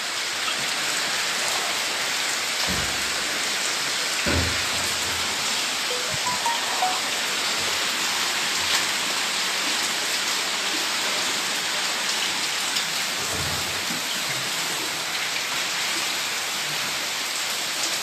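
Steady rain falling on wet ground and surfaces, with a few dull low thumps.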